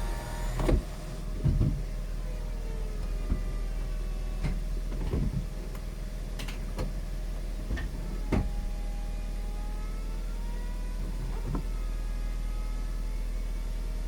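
VW Eos folding hard-top roof cycling, with the roof drive whining in rising and falling tones and clunking several times as the roof sections and side windows move and lock into place. The car's engine idles underneath as a steady low hum.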